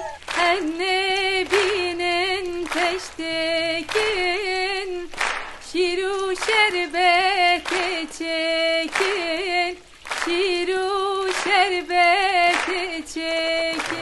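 A woman singing a melody with vibrato, unaccompanied, in short notes.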